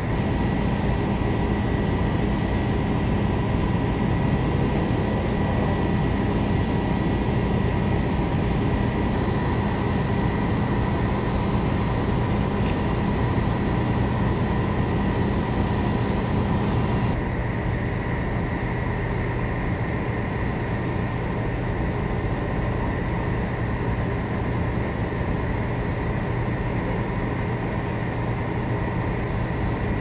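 Fire truck's diesel engine running steadily at high idle, a constant drone with a steady hum and whine. It drops slightly in level about halfway through.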